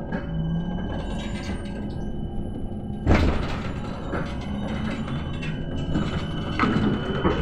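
Cabin of a PKTS-6281.01 'Admiral' trolleybus under way: a steady low rumble with body rattles and clunks, the loudest a sharp clatter about three seconds in. Near the end a rising electric whine begins.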